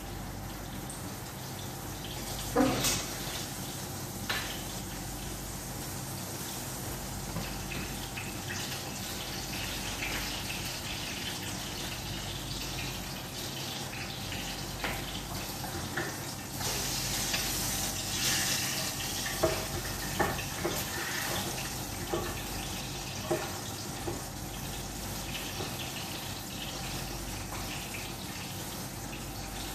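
Kitchen room sound: a steady low hum under a constant hiss, with scattered light knocks and clicks. A stronger hiss, like running water, rises for a couple of seconds just past the middle.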